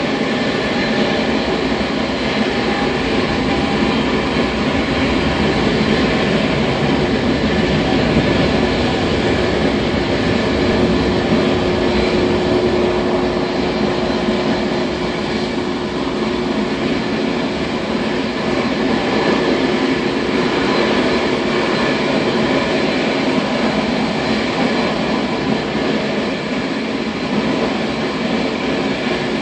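Airbus A380's four Engine Alliance GP7200 turbofans running at taxi power: a steady loud rumble and hiss with faint high whining tones on top.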